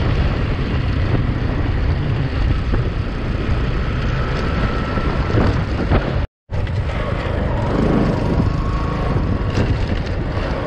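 Bajaj Pulsar motorcycle's single-cylinder engine running while riding, mixed with steady wind and road noise. The sound drops out completely for a moment about six seconds in.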